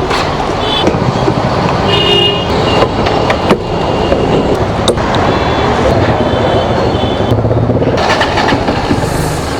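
Busy road traffic with engines running and several short horn honks.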